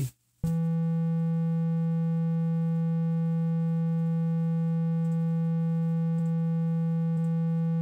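Korg Kronos synthesizer playing a triangle-wave tone on one held key, a steady low note starting about half a second in. It passes through the Stereo Dynamic Compressor at about unity gain, so its level stays constant.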